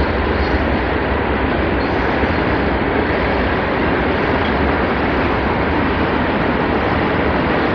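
Steady rush of wind and road noise heard while riding a bicycle, even and unbroken.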